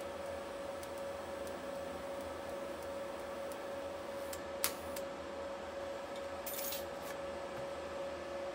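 DC TIG welding with a Lincoln Square Wave 205: a steady hiss under a constant hum. A sharp click comes about halfway through, and a brief crackle follows about two seconds later.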